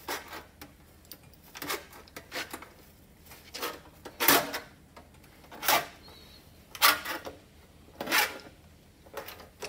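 Vise-mounted hand-lever sheet-metal shrinker clanking as its handle is pulled again and again, about once a second, about nine strokes in all. Its jaws grip and shrink the flange of a sheet-metal patch panel to work a curve into it.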